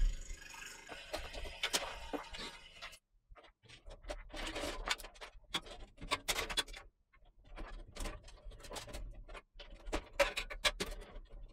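Hands handling cables and parts at the back of a PC case: scattered light clicks, taps and rustles of cable and plastic against the steel case, with a short pause about three seconds in.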